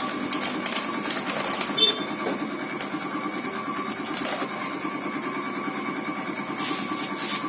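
Car engine running with its Denso air-conditioning compressor engaged, giving a fast, steady mechanical clatter. A few sharp clicks sound over it in the first couple of seconds.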